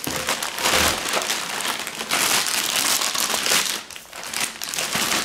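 Clear plastic bag crinkling and rustling as it is pulled off a gun in its packaging, easing off near the end.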